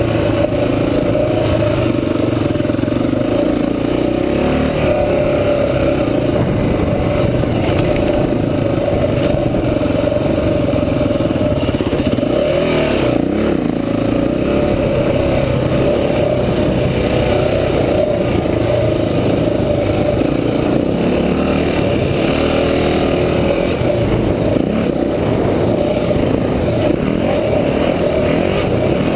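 Honda XR400's single-cylinder four-stroke engine running steadily as the dirt bike rides along, its pitch rising and falling with the throttle.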